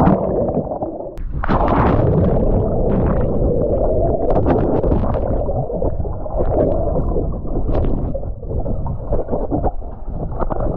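Water heard through a camera submerged in a swimming pool: a muffled, low churning and bubbling with the treble cut off, and scattered clicks. It starts with a sudden loud splash as the camera goes under.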